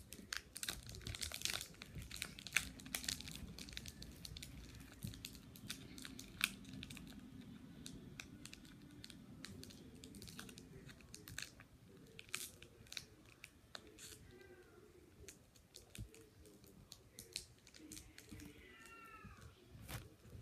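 Pokémon card booster pack's foil wrapper crinkling and tearing as it is worked open by hand, in many irregular small rustles and clicks.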